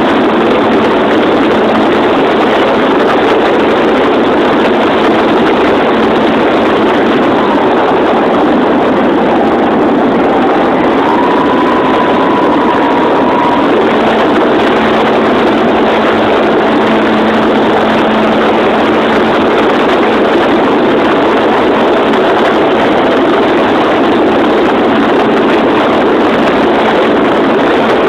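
Loud, steady rush of an RC airplane in flight, picked up by a cell phone taped to the bottom of the plane: motor noise mixed with wind over the microphone, with a faint whine that dips and then rises in pitch partway through.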